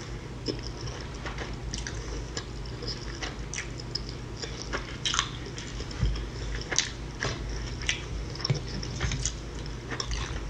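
A person chewing food close to a microphone: irregular soft clicks and smacks of the mouth, a few each second.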